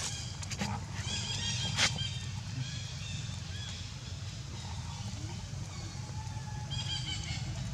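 Baby macaque giving short, high-pitched squeaky calls in a few bursts, over a low steady rumble. A sharp click about two seconds in is the loudest sound.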